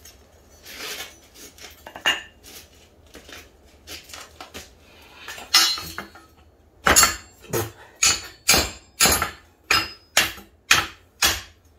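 Hammer blows on the steel tubing of a shopping-cart frame, sharp ringing metallic clanks at about two a second through the second half. Before them come a few lighter clinks of the tubes being handled.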